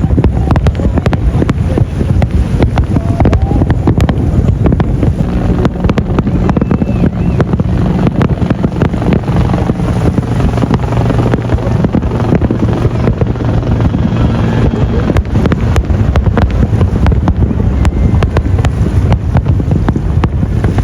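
Dense barrage of fireworks: many cracks and bangs going off in quick succession, overlapping into a continuous low rumble.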